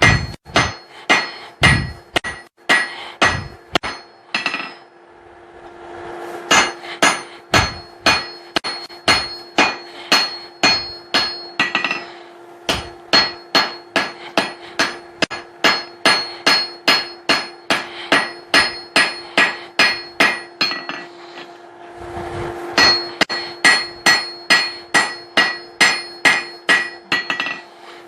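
Hand hammer blows on steel over an anvil, forging a hammer eye punch: steady ringing strikes about two to three a second, in three runs with short pauses about five seconds in and again near twenty-one seconds. A steady hum sits underneath.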